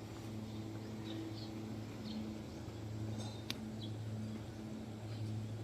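Steady low engine drone of a moving vehicle, heard from inside, with faint short high chirps scattered over it and one sharp click about three and a half seconds in.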